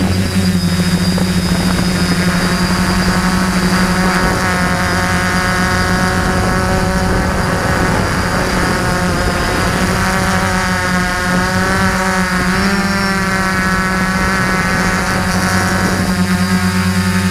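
DJI F450 quadcopter's four electric motors and propellers buzzing steadily, picked up by the camera mounted on the drone itself. The motor pitch drifts up and down near the middle as the throttle changes.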